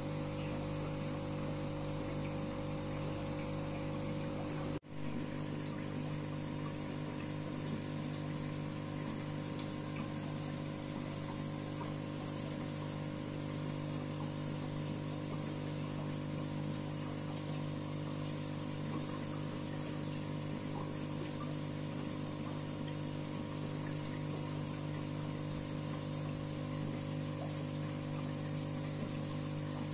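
Aquarium pump running with a steady hum and the wash of moving water. The sound briefly cuts out about five seconds in.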